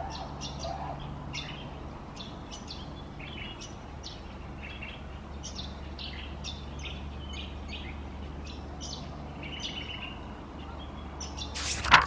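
Birds in a dawn chorus: many short chirps and calls over a steady low hum, with a brief loud whoosh right at the end.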